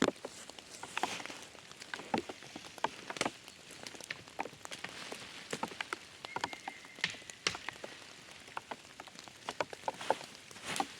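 Rain falling in the forest: irregular drops tapping and pattering, some close and sharp, over a soft steady rain noise.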